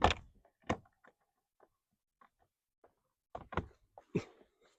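Knocks and clunks of the blower motor and its fittings being handled and pushed into place under a car's dashboard: a sharp knock at the start, another under a second later, and a cluster of knocks about three and a half seconds in.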